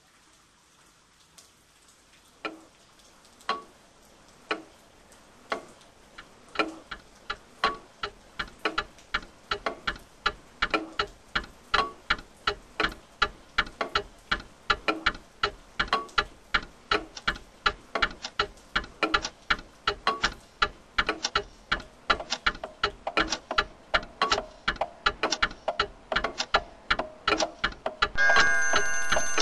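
Clock ticking, starting sparse at about one tick a second and speeding up and growing louder into dense, rapid ticking. Near the end a sustained chord of steady tones comes in over it.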